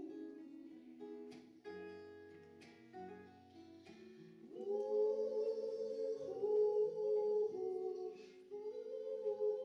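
A woman singing with an acoustic guitar: a few separately plucked guitar notes with low bass notes, then from about halfway a loud, long held vocal note with vibrato.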